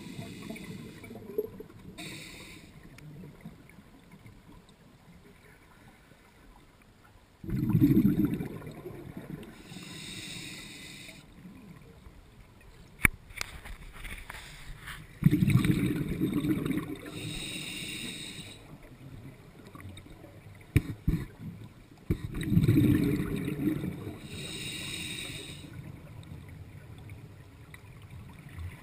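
Scuba diver breathing through a regulator underwater: three rumbling bursts of exhaled bubbles about seven seconds apart, each followed by the shorter hiss of an inhalation through the regulator.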